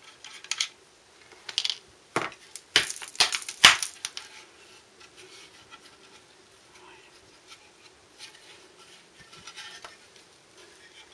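Sharp metal clicks and clinks of a spanner and the Suzuki Bandit's clutch slave cylinder casing being worked loose by hand, about half a dozen in the first four seconds, the loudest near four seconds, then only faint handling noise.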